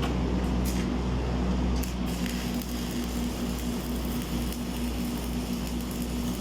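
Electric arc welding: a steady sizzling crackle over a low steady hum, the crackle growing brighter about two seconds in.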